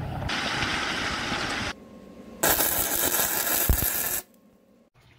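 Two stretches of loud hissing noise. The first sits over a low rumble. The second, brighter one has a sharp thump about three and a half seconds in and fits a welding arc crackling. It then drops to near silence.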